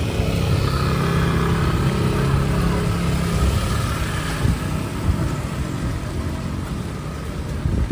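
A motor vehicle's engine running as it passes on a wet street, its hum fading after about three and a half seconds, over a steady noise of wind and rain.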